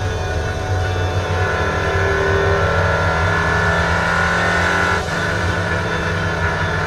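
Four-cylinder stock car engine running hard at steady high revs, heard from inside the cockpit. A short sharp knock comes with a brief dip about five seconds in.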